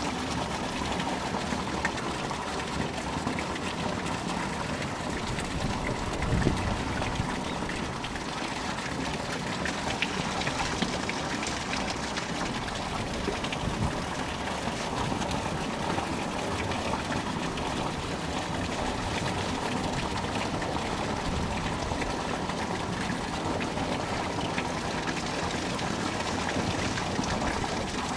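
Steady rush of running water, with a brief low thump about six seconds in.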